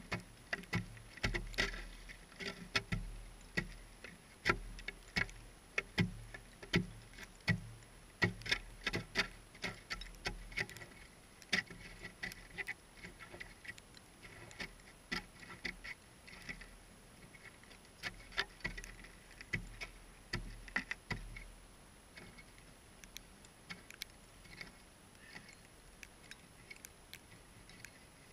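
Shovel working among broken ice in a hole cut in lake ice: irregular knocks and clinks of ice chunks, frequent at first and thinning out after about twenty seconds.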